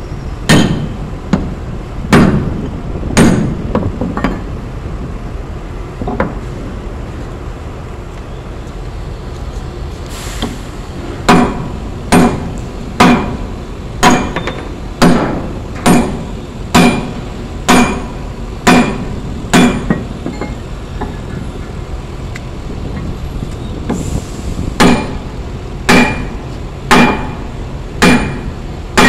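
Hammer striking a steel Kenter shackle to knock it apart, each blow a sharp metallic clank with a short ring. There are a few scattered blows at first, then a steady run of about one a second, a pause of a few seconds, and several more blows near the end.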